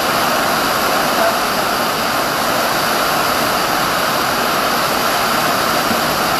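Heavy rain pouring down, a loud steady hiss with no letup.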